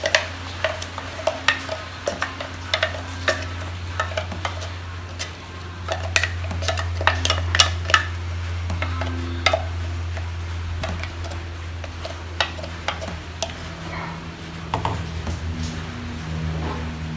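Wooden spatula scraping and tapping against a stainless-steel mixer-grinder jar as thick ground coconut chutney is scraped out into a bowl: a run of irregular clicks and taps, thinning out after about ten seconds, over a steady low hum.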